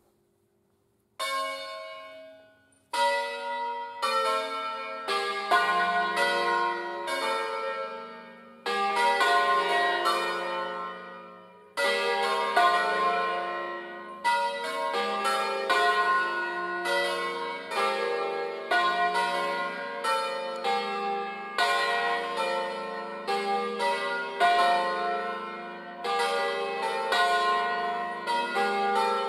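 Five church bells tuned in a slightly sharp F, cast by Angelo Ottolina in 1957 and swung on wheels. Single strokes start about a second in, then quickly build into a steady peal with strokes overlapping, each bell ringing on as the next one strikes.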